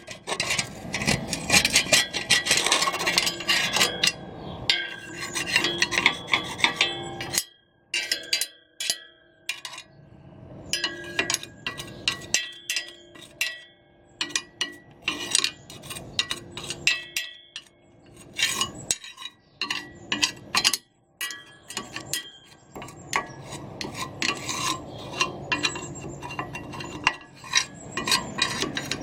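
Hand work on the metal parts of a reel lawn mower: scraping and rubbing, broken by many sharp clinks and taps of metal that ring briefly, with short pauses between.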